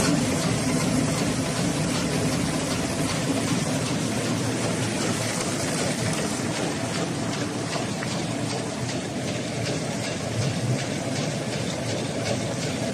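Automatic cardboard cutting machine running after being started: a steady mechanical drone with a fast, regular clacking of its cutting cycle that grows clearer about halfway in.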